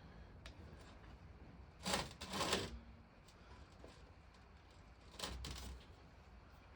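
Short clatters and scrapes of metal water-pump parts being handled on a workbench. The loudest is a double scrape about two seconds in, and a weaker one comes about five seconds in.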